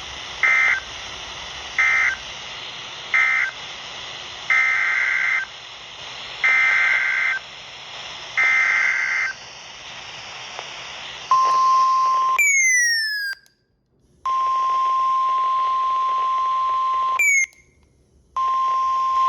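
NOAA Weather Radio SAME/EAS signalling. First come three short buzzy two-pitch data bursts, the end-of-message code that closes the warning just read. Then come three longer bursts of the next alert's SAME header. About eleven seconds in, the steady single-pitch 1050 Hz warning alarm tone starts, cut twice by quick falling sweeps and brief dropouts.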